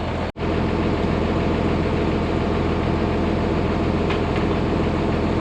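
Tractor engine idling steadily, after a brief cut in the sound just after the start.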